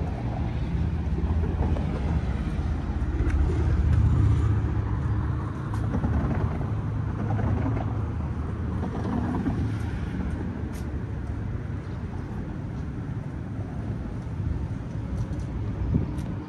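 Low rumble of passing vehicles on a city street, swelling about four seconds in and then easing off.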